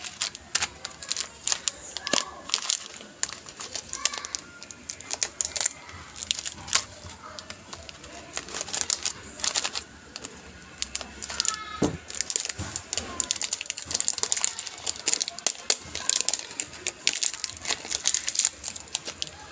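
Crinkling and rustling of plastic snack packaging being handled, in dense irregular crackles, with scissors cutting a plastic bag of popcorn kernels open partway through.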